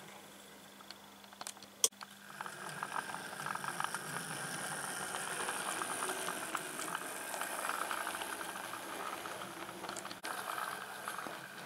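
OO gauge model train, a GWR pannier tank locomotive hauling a coach and goods wagons, running along the track with a dense rattling clatter of small wheels over rail joints and pointwork. A single sharp click comes about two seconds in, and the clatter grows louder after it.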